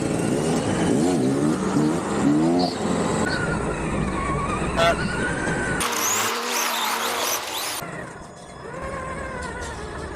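Electric motor of a remote-control car whining, its pitch rising and falling as the throttle is worked. About six seconds in there are two seconds of hiss.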